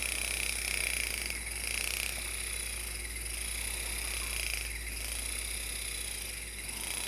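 Handheld Atlas Balance fascia-vibration device running: a steady low hum with a higher buzz that swells and fades in regular waves about every one and a half seconds, the rhythmic percussion-vibration pattern it uses on the fascia.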